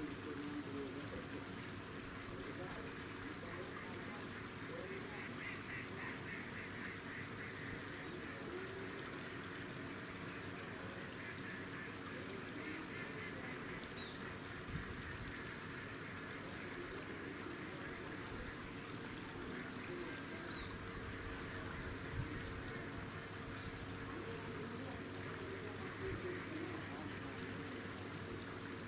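Chorus of insects: a steady high-pitched buzz, with repeated bouts of fast pulsed trilling a second or two long. Faint, short lower calls come through now and then.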